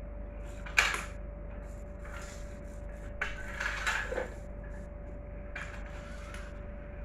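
Small plastic toy monster trucks knocking and clattering on a hard tiled floor as they are pushed and picked up: one sharp knock about a second in, a cluster of rattling knocks around the middle, and fainter ones near the end, over a steady hum.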